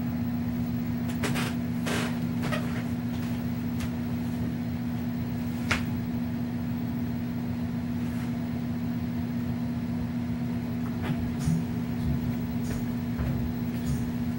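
A steady low hum, with a few short scattered clicks and knocks over it.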